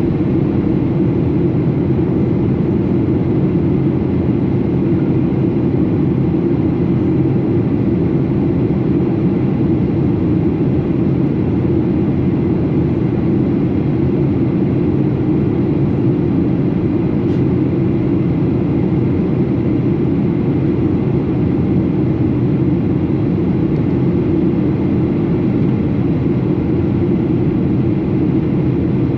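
Steady in-flight cabin noise of a Boeing 737: engine drone and airflow rushing past the fuselage, a constant low roar with no change in level.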